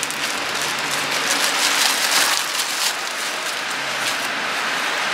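Clear plastic bag crinkling and rustling as it is handled and pulled open around a new fabric car-boot organiser, a dense, continuous crackle.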